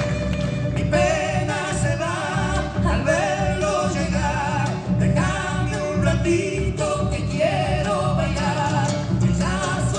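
Argentine folk dance music for a gato or chacarera, with singing over a steady rhythmic accompaniment.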